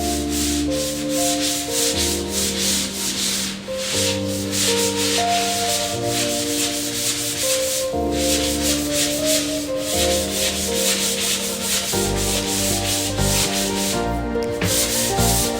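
Background music with held chords changing about every two seconds, over a loud, rapidly pulsing rasping noise like sanding or rubbing.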